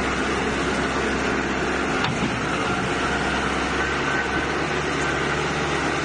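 Backhoe loader's diesel engine running steadily as the machine drives its front bucket into a pile of sand.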